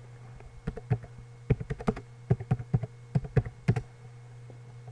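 Typing on a computer keyboard: a quick, uneven run of about a dozen keystrokes that stops about a second before the end, over a low steady hum.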